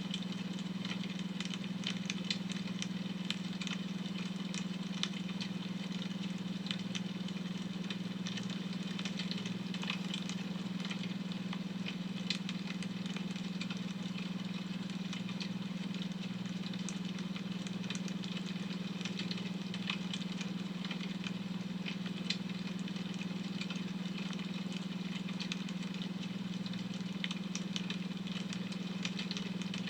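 Firewood crackling in a fire, with scattered small pops, over a steady low droning tone from a beta-wave brainwave track.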